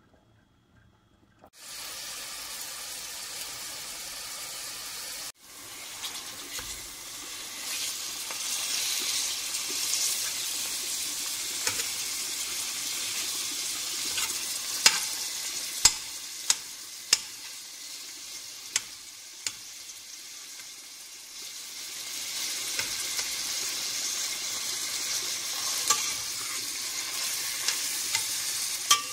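Ground beef and chopped onion sizzling in oil in a stainless steel pot, with a steady frying hiss. A metal spoon stirring them knocks against the pot a dozen or so times, in sharp clicks.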